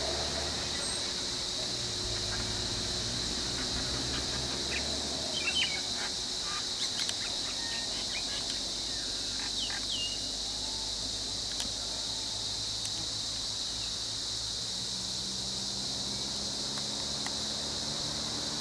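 Steady high-pitched drone of insects, with a few short bird chirps about a third of the way in and the low hum of idling vehicle engines underneath.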